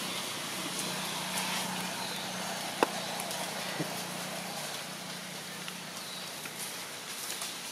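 Steady outdoor background noise: an even hiss with a low steady hum, broken by a sharp click a little under three seconds in and a fainter one about a second later.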